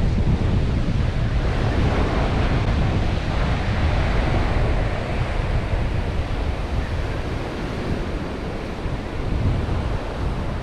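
Sea waves washing onto the shore and reef, with wind rumbling on the microphone; a wave's wash swells up about two seconds in and eases off by about six seconds.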